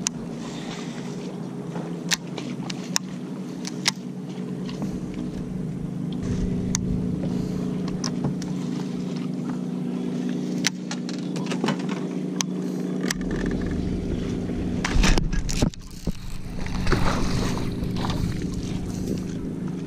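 A bass boat's electric trolling motor hums steadily, growing stronger about thirteen seconds in. Scattered sharp clicks and knocks come from the baitcasting reel and rod, and there is a brief louder burst of noise about fifteen seconds in.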